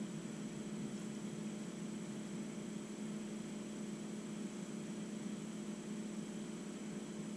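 Steady low electrical-sounding hum with a thin, high-pitched whine over it, unchanging throughout.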